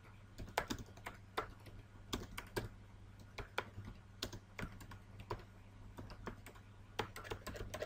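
Typing on a computer keyboard: irregular, uneven keystrokes a few times a second, over a faint steady low hum.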